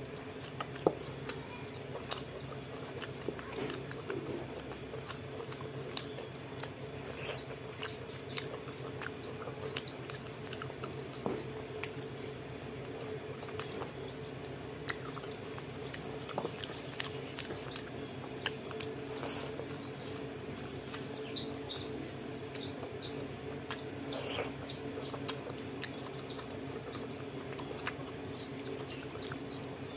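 Close-up eating with the hands: wet squelches of rice mixed with pork curry, chewing and lip smacks, heard as scattered clicks over a steady low hum. From about twelve to twenty-one seconds in, a fast run of high chirps, about four a second, sounds along with it.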